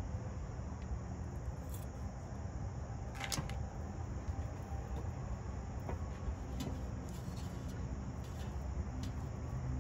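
Steady low outdoor rumble with a few faint clicks and taps as raw bacon slices are handled and laid into an air-fryer basket.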